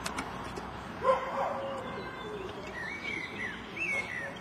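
A dog gives a short bark-like call about a second in, then a small bird sings a few warbling chirps near the end.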